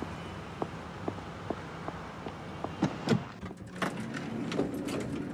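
Footsteps tapping about twice a second, then a couple of louder knocks and a cluster of clicks as an elevator's sliding doors move. A low steady hum starts near the end.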